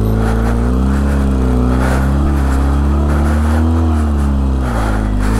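Benelli TRK 502X's 500 cc parallel-twin engine revving, its pitch rising and falling, as the bike struggles in slippery mud without pulling; the rider puts it down to an overheated clutch plate.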